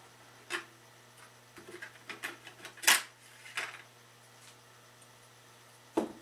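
Perforated sheet-metal power-supply cover of a Philips PM6680B counter being worked loose and lifted off, making a series of light metallic clicks and rattles, the sharpest about three seconds in. A knock near the end as the cover is set down on the bench.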